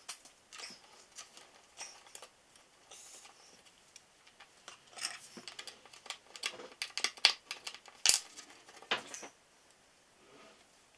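Irregular small clicks, taps and short scrapes of hands handling small hub parts and tools, busiest and loudest about five to nine seconds in.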